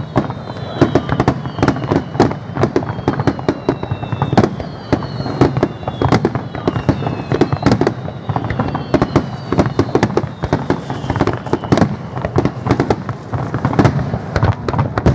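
A dense barrage of aerial firework shells bursting, many bangs overlapping in quick succession. Through it run repeated high whistles that slide down in pitch.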